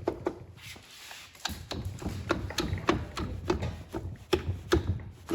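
A run of sharp knocks and clicks, about two or three a second, from hand work on engine parts.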